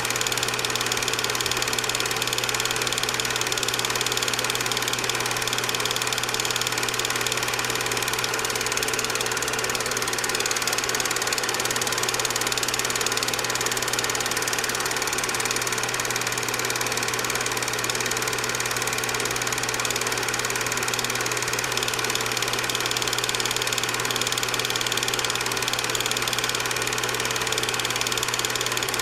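Film projector running: a steady mechanical whir over a low hum.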